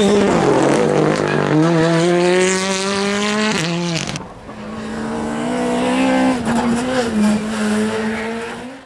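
Rally car engines running hard. One engine climbs steadily in pitch as the car accelerates. About four seconds in the sound switches abruptly to another car, whose engine holds a high, wavering note and then fades out at the end.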